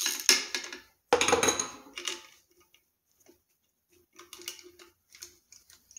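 Clicks and clatter of wires, wire nuts and metal parts being handled and pushed into an electric motor's wiring box, with a louder knock about a second in and scattered light clicks after.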